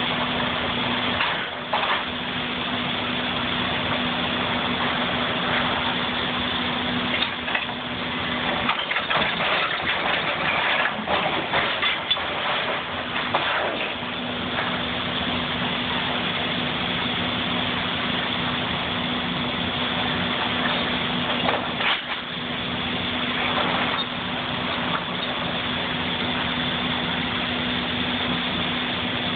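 Excavator's diesel engine running with a steady hum while its grapple tears into a wrecked wooden mill building, giving irregular cracks and crashes of breaking timber and metal siding. The crashes bunch up about 8 to 13 seconds in and again near 22 seconds, where the engine hum briefly drops out.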